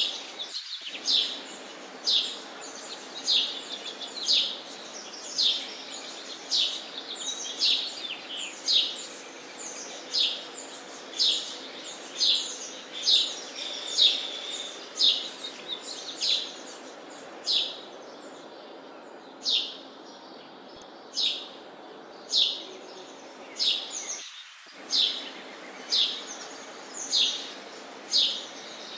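Sparrows chirping: short, falling chirps repeated about once a second, over a steady low background noise.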